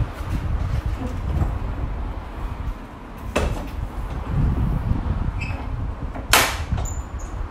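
Pickup truck's metal tailgate being swung up and shut: a knock about three seconds in, then a louder clunk of the tailgate latching a little after six seconds, with small clicks around it, over a steady low rumble.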